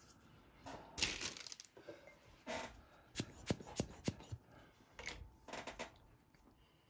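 White hard pastel stick scratching across sanded pastel paper in short, irregular strokes, with a few sharp clicks and taps in between.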